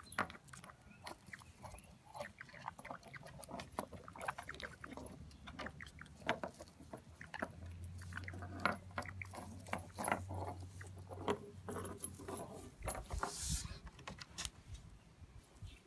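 Rainbow lorikeet pushing a shot glass around on wooden deck boards with its beak: many irregular light taps and clinks of the glass against the wood.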